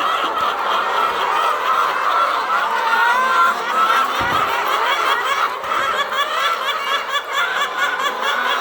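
A large flock of caged laying hens clucking together in a steady, dense chatter of many overlapping calls.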